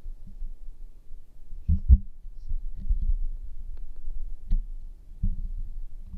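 Scattered soft low thumps and a few faint clicks, irregular, with the strongest pair of thumps about two seconds in.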